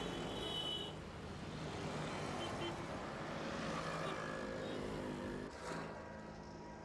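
Road traffic: vehicle engines running under a steady rush of noise, with a sudden change to a quieter engine sound about five and a half seconds in.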